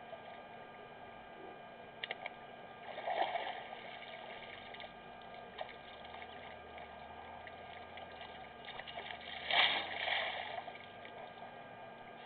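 Water splashing and gushing as an elephant drinks. It comes in two noisy swells, a short one about three seconds in and a louder, longer one near the end, over a steady background hiss and hum.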